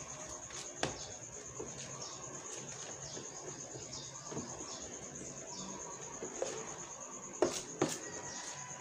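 Rice-flour batter being mixed in a plastic tub, with a few sharp knocks against the tub: one about a second in and two close together near the end. A cricket trills steadily and high-pitched in the background.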